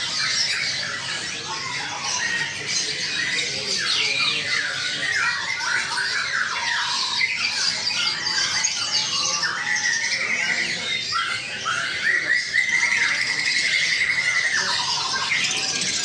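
A crowd of caged birds chirping and squawking all at once, a dense overlapping chatter of short high calls, with a longer buzzy trill standing out about twelve seconds in and running for a few seconds.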